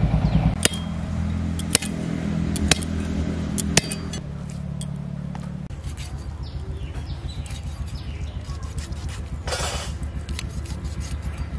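A small engine running nearby, a low steady drone that shifts in pitch a couple of times. Four sharp clicks come about a second apart over the first four seconds.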